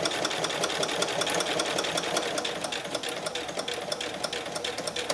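Singer Quantum 7350 sewing machine running slowly, its needle stitching through felt in an even run of clicks over the motor's steady hum.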